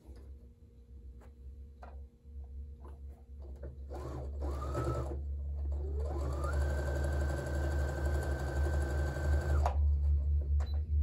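Brother electric sewing machine stitching: a short run about four seconds in, then a longer run whose whir rises in pitch as it speeds up, holds steady, and stops suddenly near the end.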